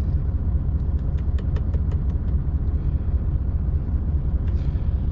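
Heavy goods lorry's diesel engine running steadily, a low rumble heard from inside the cab. About a second in there is a quick run of light clicks, roughly seven a second, for about a second and a half.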